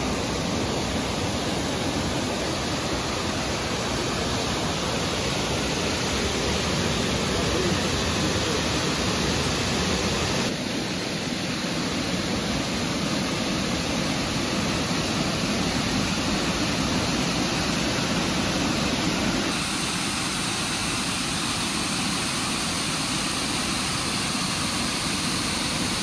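Crystal Cascade waterfall: a steady, full rush of water falling over rock, changing slightly in tone twice, near the middle and about two-thirds of the way through.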